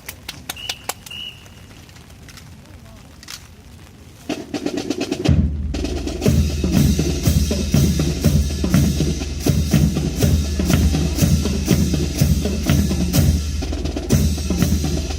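Drumline of a drill team: scattered sharp clicks for the first few seconds, then about four seconds in a drum enters, and from about five seconds on snare and bass drums play together in a dense, fast, steady pattern.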